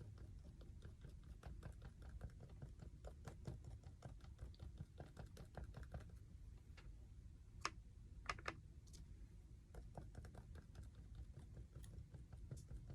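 Faint, rapid tapping of a small paint sponge dabbing through a stencil onto a wooden box, with a few sharper clicks a little past halfway.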